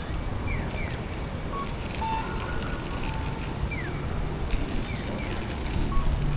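City street noise: a steady low rumble of traffic, with pairs of short falling chirps every few seconds and a few brief beeps.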